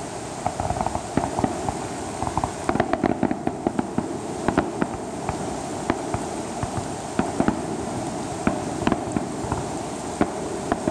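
Fireworks shells bursting overhead: clusters of many short, sharp pops and crackles that come and go over a steady background hiss.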